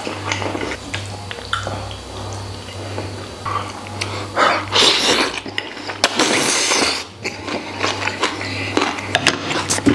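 Close-miked eating sounds: chewing and slurping of food, with short clicks of chopsticks against a bowl, over background music with a pulsing low beat. Two longer, loud, noisy mouth sounds come around the middle.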